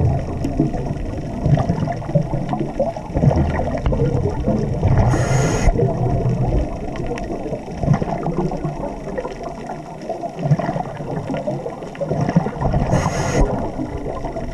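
Underwater scuba breathing. The diver's regulator gives two short hisses on in-breaths, about five seconds in and near the end. Between them is a rough low rumble and gurgle of exhaled bubbles.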